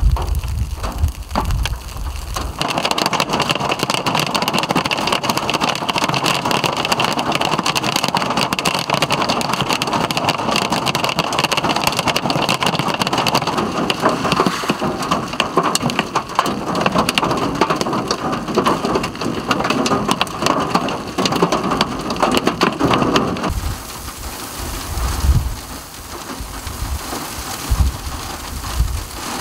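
Large hail pelting a paved road and roadside grass: a dense, steady clatter of countless stones striking. At the start and again for the last several seconds, strong wind gusts rumble across the microphone as the hail keeps falling.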